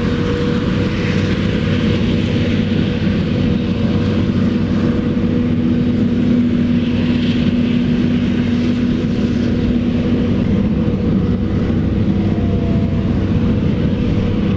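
Heavy farm diesel machinery running steadily at working revs: a forage harvester and tractors at work on maize silage.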